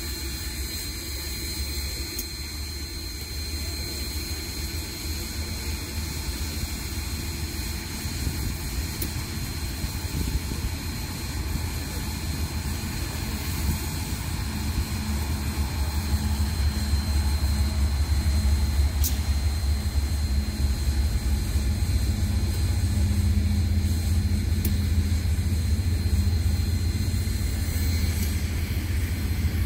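Diesel locomotives of a Norfolk Southern freight train running with a deep, steady rumble that grows louder from about halfway through as the train comes closer. A thin, steady high whine sounds throughout.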